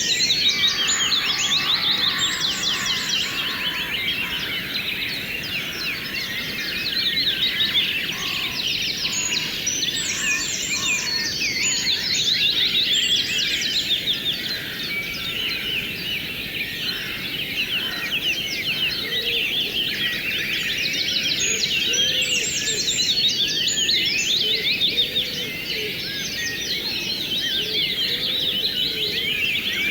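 Many birds chirping at once in a dense, unbroken chorus, over the steady rush of flowing river water.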